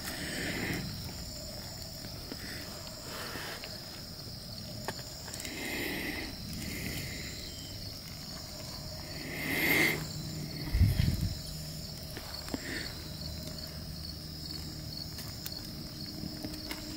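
Insects calling in a steady, evenly pulsing high-pitched chorus, with a few soft rustles of handling and one low thump about eleven seconds in.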